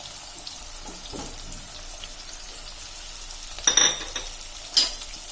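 Chopped onions frying in hot oil in a kadai, a steady sizzle, with a utensil stirring and knocking against the pan twice in the second half, louder than the sizzle.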